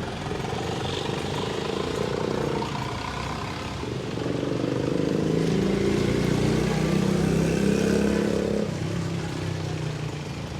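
A vehicle engine running steadily, growing louder from about four and a half seconds in and easing off again near the end.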